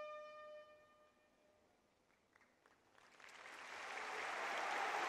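A held brass note fades away, then there is a hush, then a stadium crowd's applause swells up from about three seconds in.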